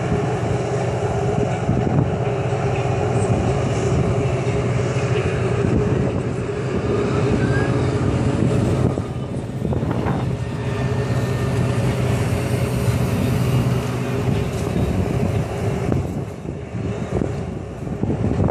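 Personal watercraft engine running at high revs to drive a Jetovator's water jets through its hose: a steady engine drone mixed with the rush of spray. It dips briefly about halfway through and again near the end.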